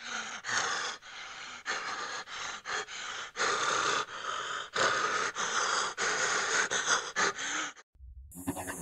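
A person breathing hard close to the microphone, in quick ragged breaths of about two a second, which cut off abruptly near the end.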